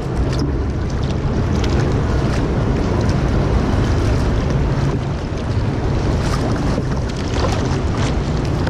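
Wind buffeting the microphone, with water splashing and lapping around a kayak being paddled, and a few brief splashes along the way.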